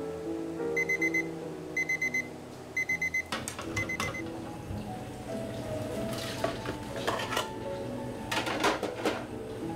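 An electronic beeper, four quick runs of high beeps about a second apart, followed by dishes and utensils clattering.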